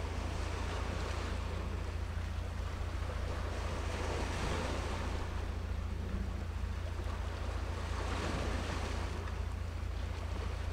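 Sea waves washing in at the shore, swelling twice, over a steady low rumble.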